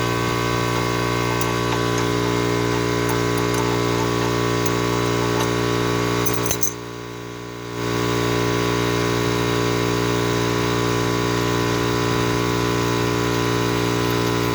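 A steady hum made of many even tones, with a few faint metallic clinks of hand tools on the suspension parts being removed; the hum drops away for about a second just past the middle.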